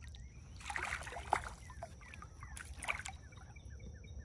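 A hooked largemouth bass thrashing and splashing at the water's surface beside the boat, in two bursts: the first about a second in, the second near three seconds.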